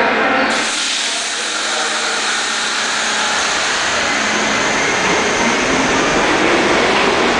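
New York City subway train moving off along the far track of an underground station: a steady rushing of wheels and motors on the rails.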